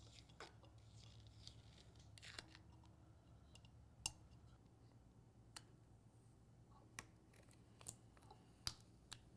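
Near silence, with a few faint, sharp ticks and light rustles scattered through it from hands handling a glass jar and pressing a vinyl stencil onto it.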